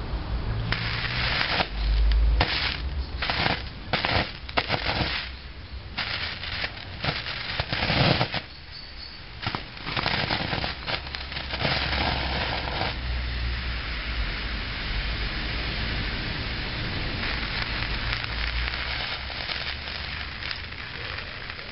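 Magnesium pencil sharpener burning fiercely, crackling and spitting in a string of loud, irregular bursts over the first dozen seconds or so. After that it gives way to a steady, even hiss.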